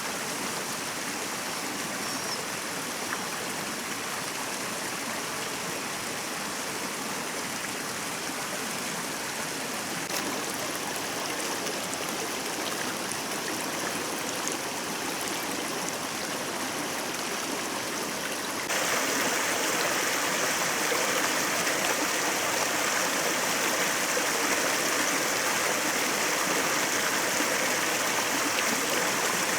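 Stream water running steadily over rocks, an even rushing and babbling. About two-thirds of the way through it abruptly becomes louder and brighter, then holds steady again.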